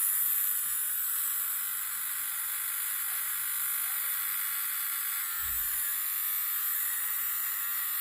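VGR V321 egg-shaped electric shaver running steadily, a high-pitched buzz from its motor and blade.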